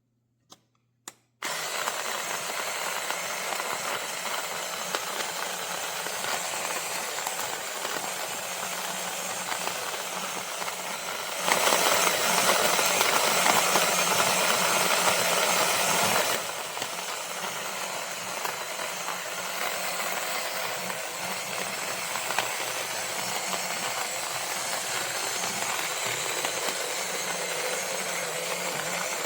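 Small cordless electric conical burr coffee grinder's motor running steadily, starting after a moment of silence; it gets louder for about five seconds in the middle, then settles back to its earlier level.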